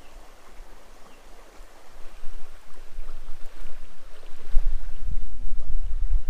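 Small creek running over shallow riffles, a steady rushing hiss of moving water. A low rumble on the microphone builds up about two-thirds of the way in.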